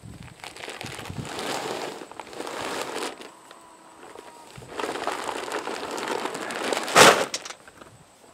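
Plastic animal-feed bags crinkling and rustling as they are handled, in two stretches, with a loud crunching thud about seven seconds in as a bag lands on the ground.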